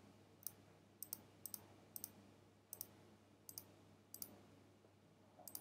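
Quiet computer mouse clicks, about nine scattered single and double clicks, as a diagram is edited in a modelling program.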